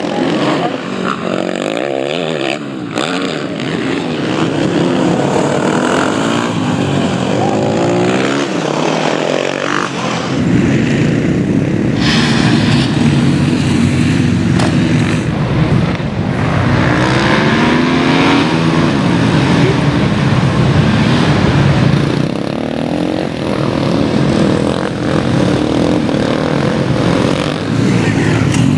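Supermoto race motorcycles revving up and down, the engine pitch rising and falling again and again as the bikes brake into corners and accelerate out. About ten seconds in the sound grows deeper and fuller.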